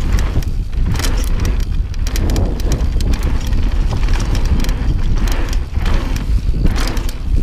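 Mountain bike rolling fast down a dry dirt trail: the tyres rumble over the ground while the bike rattles and clatters with many short knocks, and wind rumbles on the microphone.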